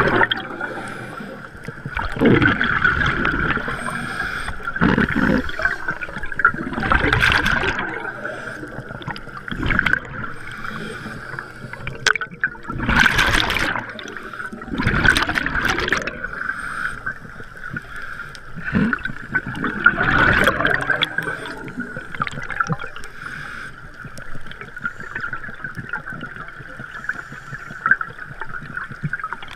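Scuba diver breathing through a regulator underwater: exhaled bubbles gurgle out in bursts every few seconds over a steady high hum.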